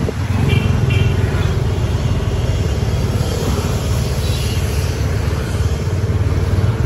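Motor scooter engines running at low speed, a steady low drone with road noise from scooters close by. Two short high beeps come about half a second in.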